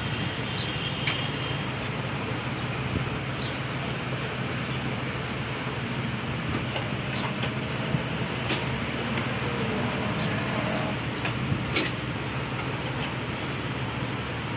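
Steady background rumble of traffic and engines, with scattered light metallic clicks and taps of hand tools.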